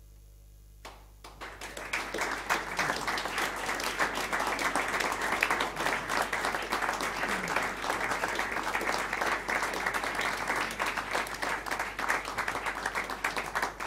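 Audience applauding at the end of a tune: clapping breaks out about a second in, swells quickly and holds steady and dense.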